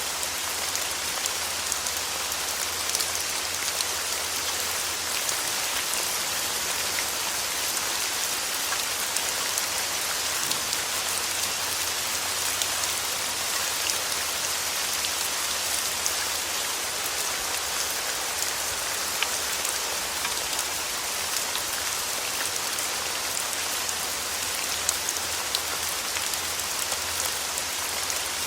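Steady rain falling, a continuous hiss with many small drop ticks scattered through it.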